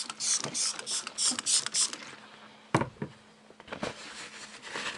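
Glass cleaner sprayed onto an LCD panel in a quick series of short hissing spritzes, then a single sharp knock partway through and fainter hissing after it.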